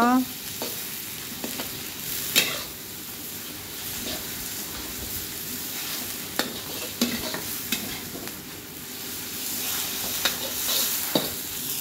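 Thin beef slices sizzling in hot oil in a steel wok as a metal spatula stirs them. A few sharp knocks and scrapes come from the spatula against the pan.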